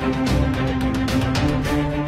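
Soundtrack music: held notes over a quick, steady beat.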